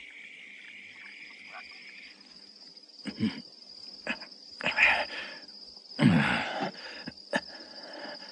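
Crickets chirping in a steady high trill at night, while a man strains and groans with effort in a few loud bursts, the loudest about six seconds in.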